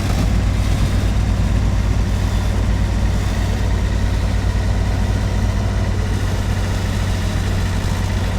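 A vehicle engine idling steadily with a low, even drone.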